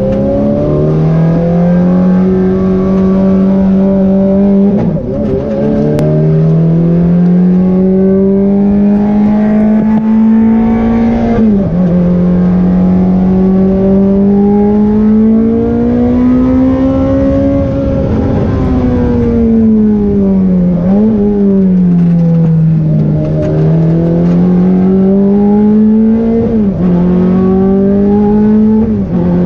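Ferrari F430 Challenge's V8 engine running hard on a track lap, heard from inside the cockpit. The note climbs in pitch under acceleration, drops sharply at gear changes, and sinks away under braking.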